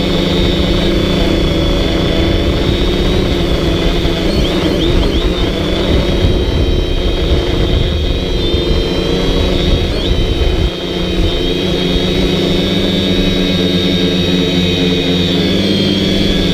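DJI Flamewheel F450 quadcopter's brushless motors and propellers whining steadily, heard from the camera riding on the drone. A low rumble underneath drops away suddenly about two-thirds of the way through.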